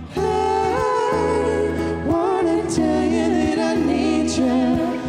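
A man's and a woman's voices singing together in harmony over a strummed Martin acoustic guitar, a new phrase sliding up about two seconds in.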